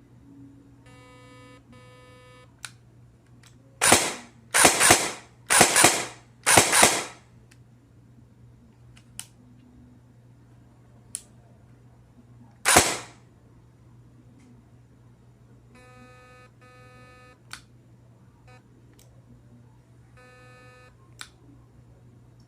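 Airsoft electric gun firing four short bursts in quick succession, then one more burst, with single sharp clicks between them. Pitched electronic beeps come from the gun's T238 electronic trigger unit: a pair about a second in, another pair near the end, then one more.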